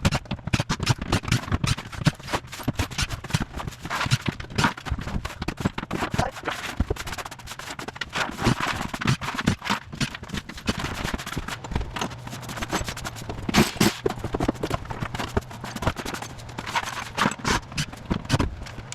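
Irregular knocking and clattering of broken tile and cement board debris being handled and dropped, with some scraping.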